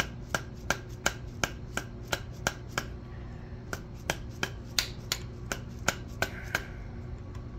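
Soft-faced mallet tapping a cam timing gear onto the camshaft nose of a Ford FE V8, seating the gear on its dowel pin. A steady run of light taps, about three a second, with a short pause partway through, stopping shortly before the end.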